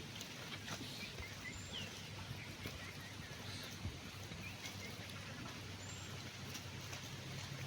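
Quiet rural outdoor ambience with small birds chirping faintly now and then.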